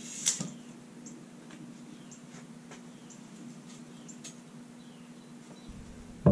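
Steel square tubing being handled before a cut: a sharp metallic click near the start, then faint scattered ticks and small squeaks over a steady low hum.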